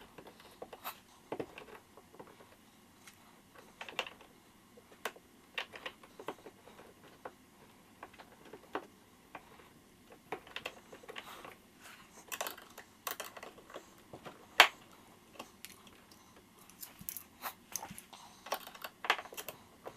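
Irregular light clicks and taps of small hardware being handled and fitted while a transducer mount is assembled and installed, with one sharper knock about three-quarters of the way through.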